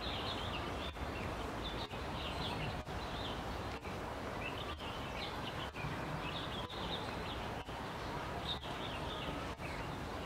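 Steady outdoor wetland background noise with scattered faint, high small-bird chirps throughout. The sound dips briefly about once a second.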